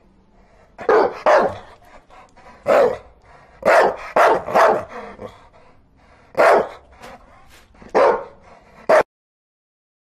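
A dog barking: about eight short, sharp barks in irregular groups (a quick pair, a single, a run of three, then two singles), stopping abruptly about nine seconds in.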